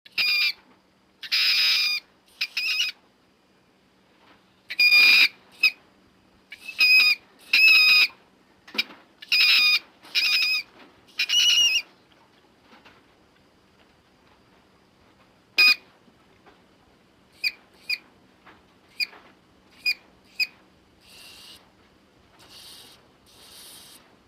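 Leptictidium creature sound effects: a series of short, shrill, high-pitched squeaking calls, loud and close together for about the first twelve seconds, then a handful of brief chirps spaced a second or so apart, with a few faint breathy hisses near the end.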